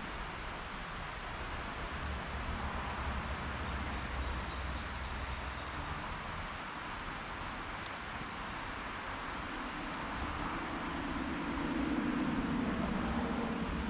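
Steady outdoor background noise with a low rumble. A faint high chirp repeats about once or twice a second, and a low hum swells briefly near the end.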